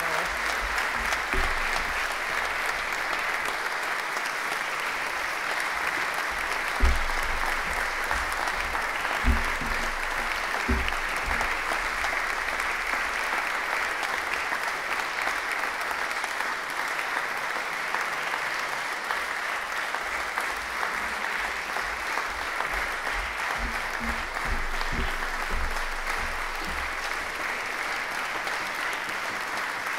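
Concert audience applauding steadily, with a few dull thumps about seven to eleven seconds in.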